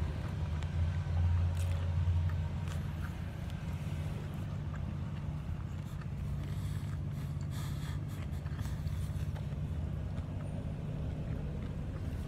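A steady low machine hum, strongest in the first couple of seconds, with faint scattered clicks over it.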